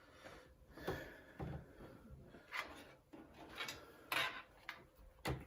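Faint, scattered scrapes and light taps of computer cables being pulled through the cable-routing holes of a PC case and brushing against its panels.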